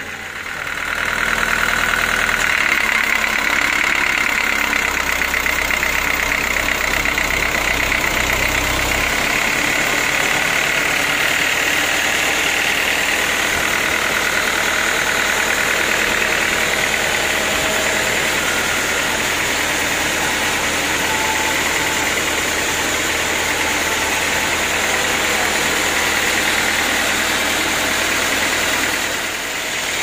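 Band sawmill running as the band saw cuts through a teak log: a loud, steady machine noise with a high saw whine that comes up about a second in and dips briefly near the end. A deep low hum underneath stops about nine seconds in.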